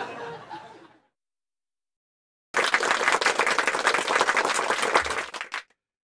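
A burst of applause-like clapping that starts about two and a half seconds in, lasts about three seconds and cuts off suddenly, after a second of silence.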